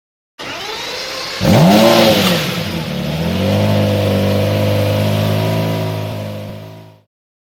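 Sports car engine starting: a short lower lead-in, then it catches with a quick rev that rises and falls in pitch and settles into a steady idle, fading out near the end.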